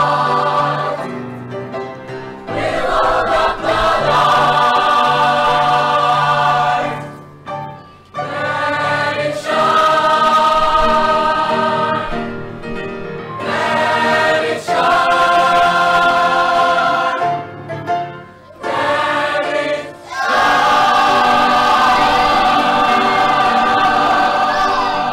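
A children's choir, with a few men's voices among them, singing a gospel song in phrases with brief pauses between them, over a steady instrumental accompaniment.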